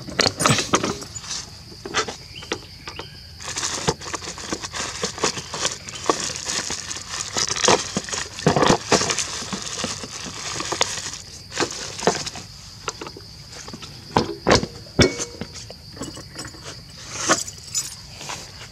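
Key working the seat lock of a Honda Dream motorbike, the seat lifting and packets rustling in the under-seat compartment: a run of metallic clicks, clinks and plastic rustles. A steady high whine sits behind them.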